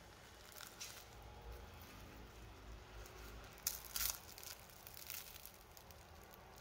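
Crisp, flaky crust of a sugar-dusted cruffin made from croissant dough crackling as it is torn apart by hand. A few faint crackles come about half a second in, and the loudest, sharpest crackles come in the middle.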